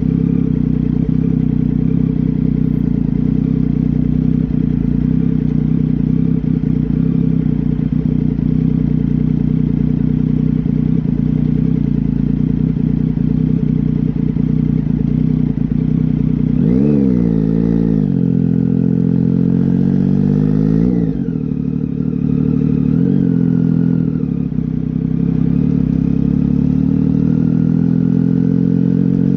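Triumph Tiger 800 XC's inline three-cylinder engine, breathing through a slip-on exhaust with the catalytic converter removed, idling steadily. Just over halfway in it is revved twice, then given a few smaller blips before settling back to idle.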